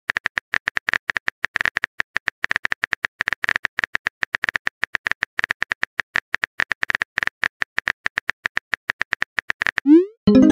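Rapid, uneven clicking of a phone keyboard typing sound effect, many taps a second, as a message is typed. Near the end the clicks stop and a short rising swoop sounds as the message is sent.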